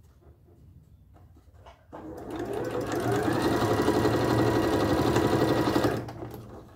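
Sewing machine stitching a seam through fabric scraps. It starts about two seconds in, speeds up over about a second to a steady run, and stops near the end.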